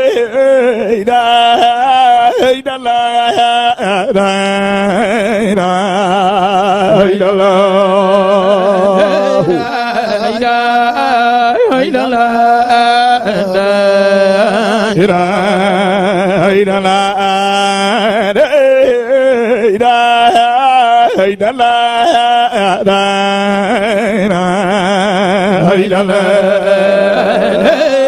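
A man chanting Islamic zikr in long melismatic phrases with heavy vibrato into a microphone, over a steady low drone.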